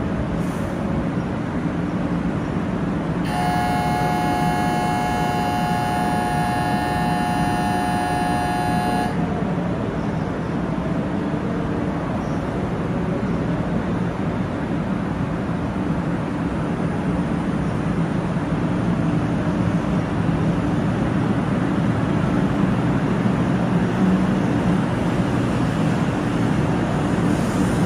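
A 500 Series Shinkansen standing at the platform with a steady hum, while a steady electronic departure buzzer sounds for about six seconds a few seconds in. Later the train pulls away, its running noise rising slightly toward the end.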